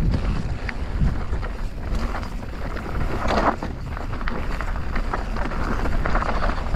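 Mountain bike rolling down a loose gravel and dirt trail: wind rumbling on the action-camera microphone, tyres crunching over the surface and the bike rattling, with a louder scrape of gravel about three seconds in.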